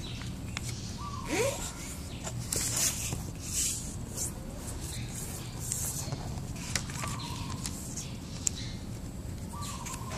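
Paper rustling and creasing as an origami sheet is folded by hand, in a few short bursts with light ticks. A few short bird calls sound in the background over a steady low hum.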